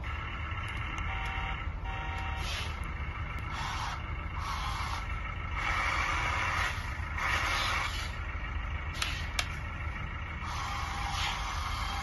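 LESU model tracked skid steer loader running under radio control: a steady low hum, with repeated bursts of higher whirring and hissing as its tracks drive and its arm and bucket move.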